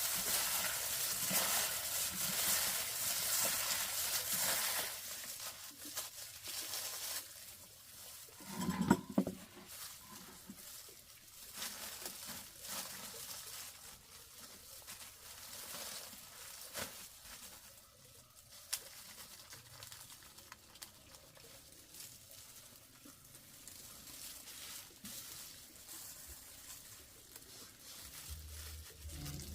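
Light pattering and rustling with scattered small clicks of handling. A steady hiss runs through the first few seconds, and one brief louder sound comes about nine seconds in.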